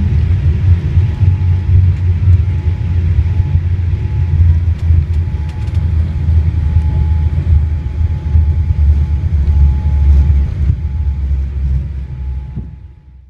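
Steady low rumble inside the cabin of a Boeing 787-8 rolling out on the runway after touchdown, with the spoilers raised, and a faint steady whine. It fades out near the end.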